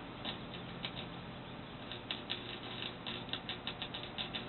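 Flux-core wire-feed welder crackling and popping irregularly in short sputters, over a steady low hum.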